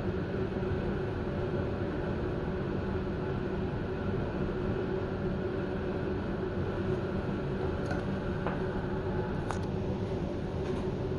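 Steady mechanical hum of a standing passenger train carriage's ventilation and on-board equipment, several even tones over a low noise bed, with a few faint clicks in the second half.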